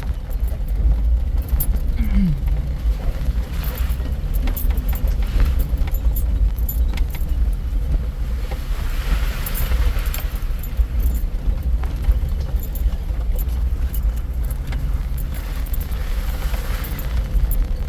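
Vehicle driving slowly over a rough trail, heard from inside the cabin: a steady low drivetrain and road rumble with constant loose rattling and clicking.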